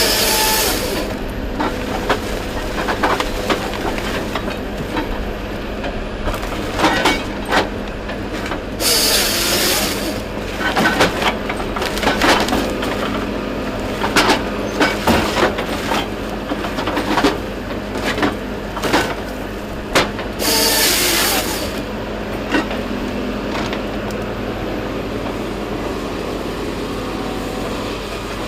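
Heavy logging machine running steadily while it handles logs, with repeated knocks and clunks of wood and metal. Three short hisses break through: near the start, about 9 seconds in and about 21 seconds in.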